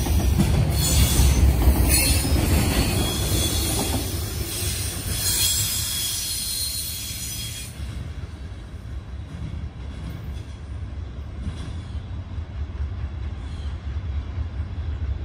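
Freight train's container flatcars rolling past, with a steady rumble and high-pitched wheel squeal. About eight seconds in the squeal drops away and the sound fades to a low rumble as the end of the train rolls off into the distance.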